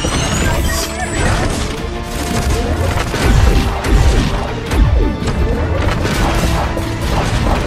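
Robot transformation sound effects: heavy metallic clanks and crashes, with the loudest hits about three to five seconds in, over background music.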